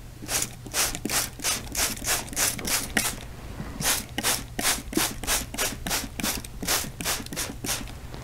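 Handheld spray bottle misting water onto a quilt in quick repeated squirts, about three a second, with a brief pause about three and a half seconds in.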